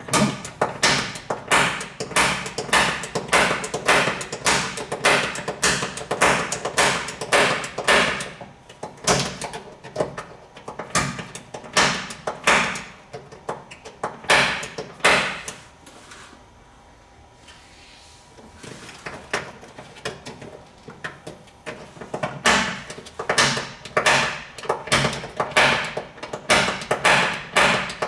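Gloved fist pounding on rusty sheet steel, about two knocks a second, each with a short metallic ring, while trying to knock out a seized rusty bolt. The knocking stops for a few seconds about midway, then starts again.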